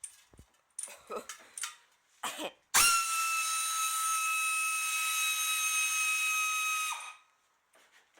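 Pneumatic air tool, apparently an air ratchet, starting suddenly and spinning with a loud, steady high whine for about four seconds, then cutting off with a slight drop in pitch. A few short clanks of tool and metal come before it.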